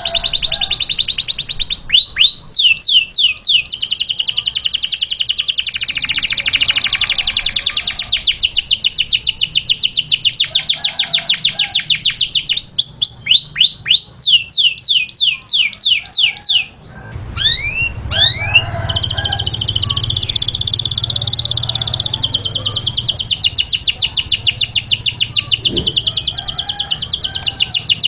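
Domestic canary singing a tutor song: long, fast, high trills broken three times by slower runs of swooping notes that glide up and down.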